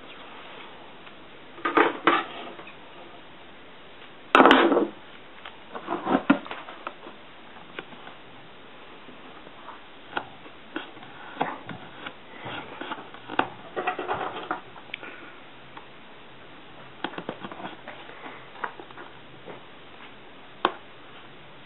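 Vinyl electrical tape being pulled off its roll and pressed along the edges of a corrugated plastic hull: two short noisy bursts about two and four and a half seconds in, the second the loudest, then scattered light clicks and rubs as the tape is worked down.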